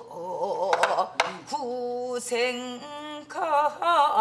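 A woman singing a line of a Gyeongsang-do folk song in the menari mode, holding long notes with wide sliding and wavering ornaments. Two sharp taps sound about a second in.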